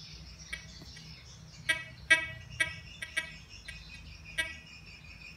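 A Gold Bug Pro metal detector gives about seven short, irregularly spaced beeps, signalling metal targets. The loudest beep comes a little after two seconds in. Crickets chirr steadily behind.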